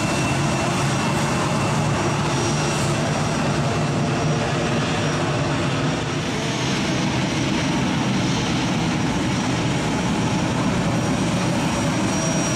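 Airbus A319 jet engines running steadily as the airliner taxis on the runway: a dense, even rush with thin high whines over it.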